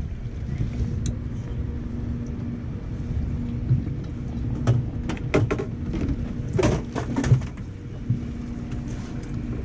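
Outboard motor idling with a steady low hum under wind on the microphone. A run of sharp knocks and clatters comes about halfway through.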